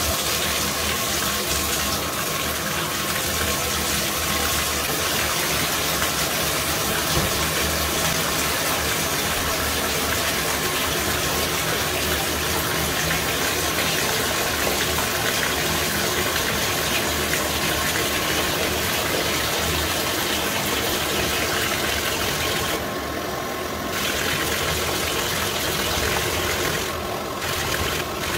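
Bathtub tap running steadily, its stream splashing onto the tub floor. The sound dulls for about a second near the end as a hand goes under the stream.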